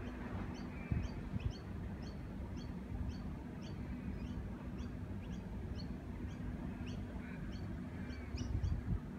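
A small bird chirping over and over, a little over two short high chirps a second, over a steady low hum and rumble.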